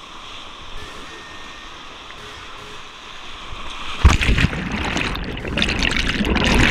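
Churning white water of an artificial rapid rushing steadily. About four seconds in, the kayak goes over and the water breaks over the microphone with a sudden loud splash, followed by loud turbulent churning water that cuts off abruptly near the end.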